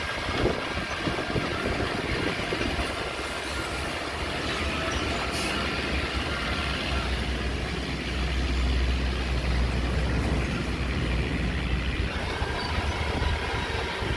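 Heavy diesel earthmoving machinery running, a deep engine rumble that grows louder a little past halfway through and eases again near the end.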